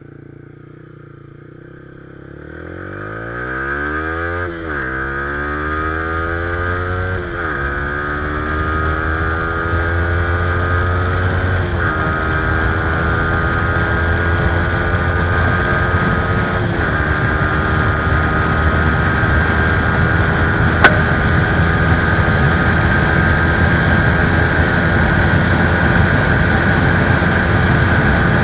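Single-cylinder sport motorcycle with an aftermarket exhaust pulling away from a low idle and accelerating up through the gears. Its note climbs and drops back at four gear changes, then holds steady and grows louder. A sharp click comes about two-thirds of the way through.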